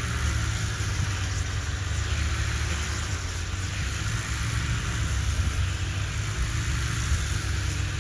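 An engine running steadily with a low rumble and a broad hiss over it, with no change in pace.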